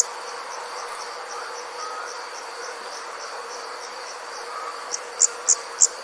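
Night insects chirping in an even rhythm: soft high chirps about three times a second over a steady high drone, with louder, sharper chirps taking over about five seconds in.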